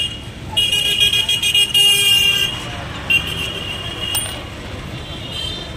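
Vehicle horns honking over street traffic noise: a long steady honk lasting nearly two seconds starts about half a second in, and a shorter one sounds around three seconds in, followed by a sharp click.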